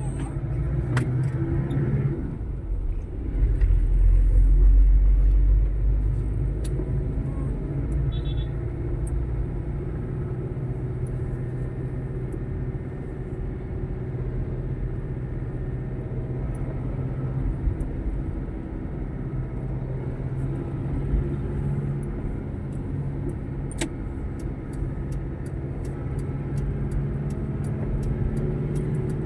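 Motor vehicle engine running steadily in traffic, a continuous low drone that swells louder about three to six seconds in.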